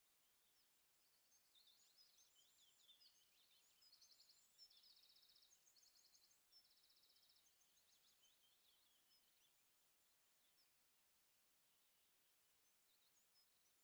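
Faint birdsong: several small birds chirping and trilling high up, busiest and loudest from about two to seven seconds in.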